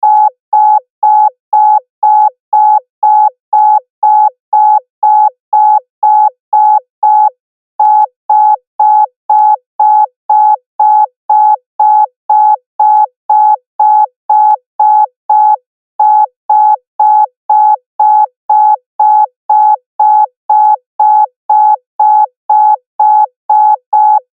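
Loud electronic beeping at one steady pitch, repeating evenly at nearly three beeps a second, with two short breaks in the pattern.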